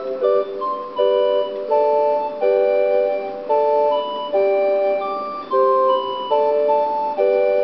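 Keyboard music: slow, held chords that change about once a second.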